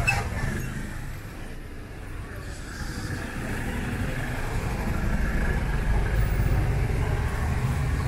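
Car engines running close by on a busy street, a low rumble of passing and idling traffic that grows louder in the second half.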